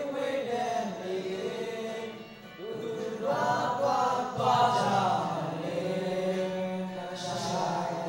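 A group of men singing a song together in chorus, with a brief break between lines about two seconds in.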